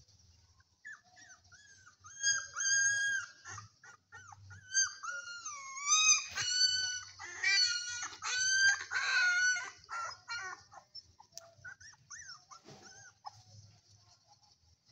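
Several young puppies whining and crying: high-pitched calls that overlap and slide up and down. They are busiest from about six to ten seconds in, then thin out to a few faint whimpers.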